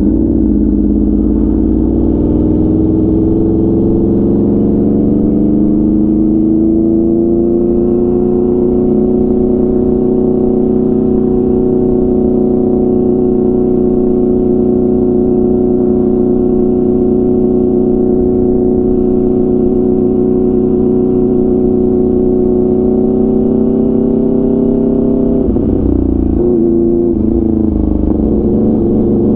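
2016 Aprilia RSV4 RF's V4 engine running through an SC-Project CRT full exhaust. The pitch rises over the first several seconds as the bike pulls away, then holds a steady drone at cruising speed. About 25 seconds in the pitch drops and wavers as the throttle changes.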